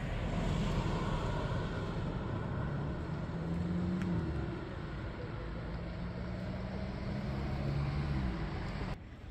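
Motor vehicle engine humming over a steady rumble, its pitch rising slightly about three and a half seconds in and falling away near the end.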